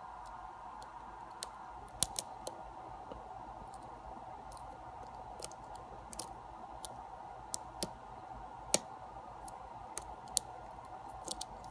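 Small, irregular metallic clicks of a hook pick working the pins of a pin-tumbler lock under tension from a tension wrench, a few sharper clicks scattered through, over a steady faint hum.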